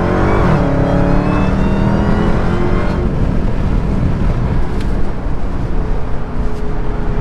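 Dodge Charger Hellcat's supercharged 6.2-litre V8 under acceleration: the engine note climbs briefly at the start, holds a steady pitch for a couple of seconds, then eases off about three seconds in into a lower, steady cruising drone with road noise.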